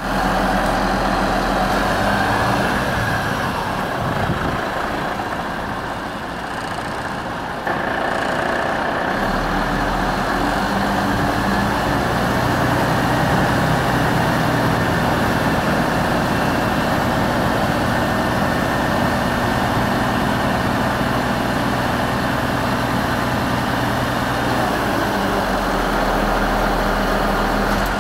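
MAN TGA 26.440 truck's six-cylinder diesel engine idling steadily, with an abrupt shift in level and tone about eight seconds in.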